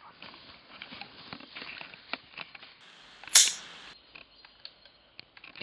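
Footsteps running through dry leaf litter, an irregular patter of crackles and rustles, then about three seconds in a single loud gunshot with a short tail.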